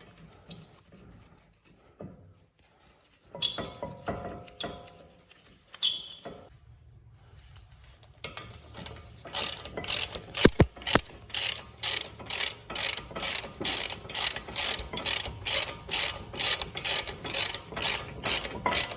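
A BMW X3 front brake caliper bracket's pad slide areas being scraped clean by hand, in quick, even back-and-forth strokes about two to three a second. The strokes start about eight seconds in, after a few scattered knocks and clinks.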